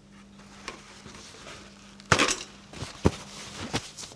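Kitchen clatter: a sharp burst of knocks about two seconds in, then several lighter knocks, as kitchen items are handled on a countertop. A faint steady hum runs underneath.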